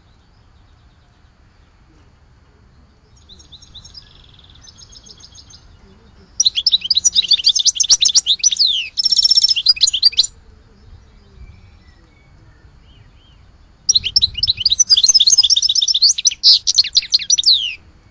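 A songbird singing in phrases of fast twittering trills: a faint phrase about three seconds in, then two loud phrases of about four seconds each, separated by pauses.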